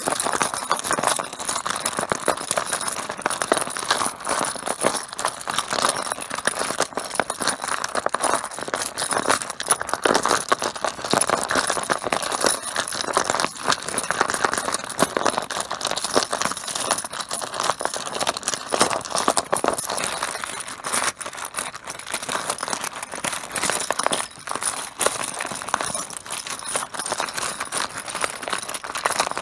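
Mahjong tiles clattering, many small hard clicks and knocks in a dense, continuous stream, thinning a little about two-thirds of the way through.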